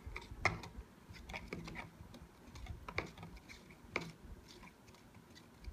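Metal spoon stirring liquid in a thin plastic cup, giving faint, irregular light clicks as it knocks against the cup's sides and bottom.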